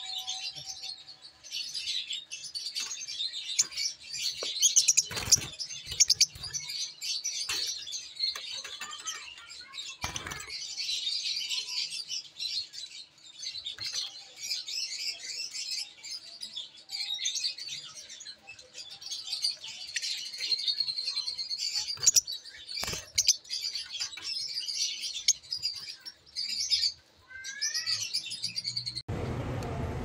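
A cage of Fischer's lovebirds chattering: a continuous mass of shrill, high chirps and squeaks, with a few sharp clicks. Near the end the chatter breaks off and a low hum takes over.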